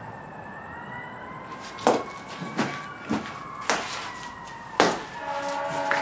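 A wailing, siren-like tone gliding slowly up and down, cut by five sharp swishes or hits spaced about half a second to a second apart. Near the end the wail gives way to a steady chord of several held tones.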